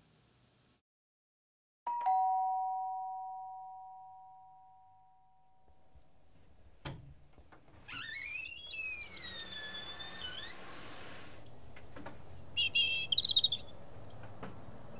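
A two-tone doorbell chime rings once, a high note then a lower one, and fades out slowly. A sharp click follows, then steady outdoor ambience with chirping birdsong as the front door is opened.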